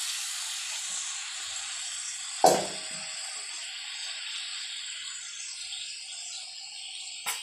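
Small dried fish frying in hot oil in a pan, sizzling steadily, with a single knock about two and a half seconds in and a short click near the end.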